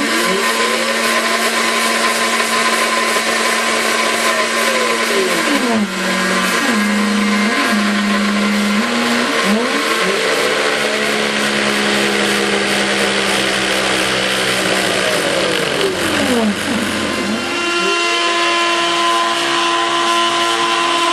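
Homemade CNC router carving a 3D model: the cutting spindle runs steadily with a constant hum, while the stepper-driven axes whine in pitch sweeps that rise and fall over a second or two as the axes speed up and slow down.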